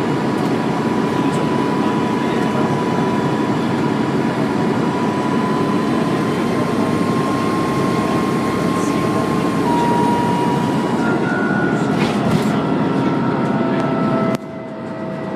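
Dennis Trident II double-decker bus's engine running under load, heard on board, with a steady high turbo whine that creeps up in pitch and then steps down. About a second before the end the engine sound drops suddenly.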